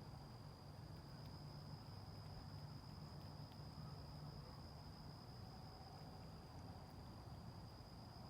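Near silence with a faint, steady high-pitched insect trill, like a cricket, over a low background rumble.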